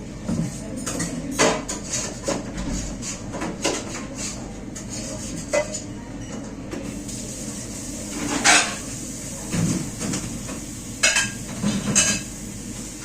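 Plates and cutlery clinking and knocking together irregularly as dishes are washed by hand, with a few louder clatters about eight seconds in and again near the end.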